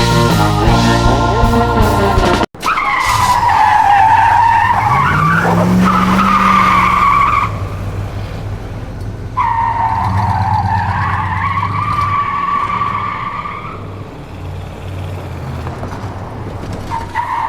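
Background music that cuts off about two and a half seconds in, followed by a car tyre squeal and skidding over a steady low engine hum. The squeal comes in two long wavering stretches, and a third begins near the end.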